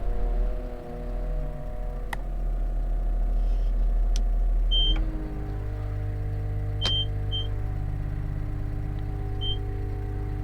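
Caterpillar 930M wheel loader's diesel engine running steadily, its note shifting lower and more even about five seconds in. Several short, high electronic beeps and a couple of sharp clicks sound over it.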